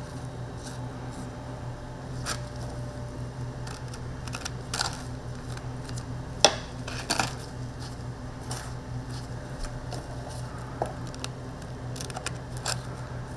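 Scattered clinks and taps of kitchen utensils, the sharpest a little past the middle followed by a quick double tap, over a steady low hum.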